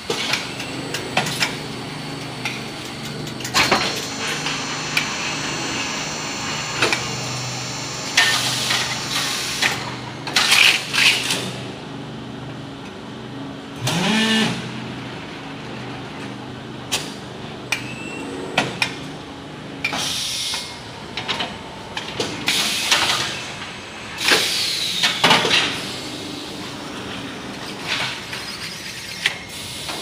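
Automatic pallet strapping machine for PET (plastic-steel) strap working through its cycle: a steady motor hum with repeated clicks and clunks, several short hissing bursts, and a rising whine about 14 seconds in.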